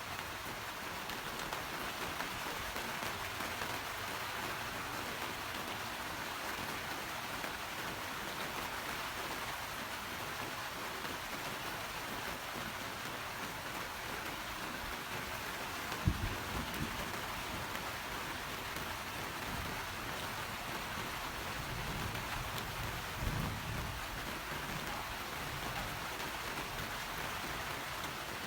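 Steady rain falling and pattering on surfaces, an even hiss throughout. A short low thump of thunder comes a little past halfway, followed some seconds later by a brief low rumble.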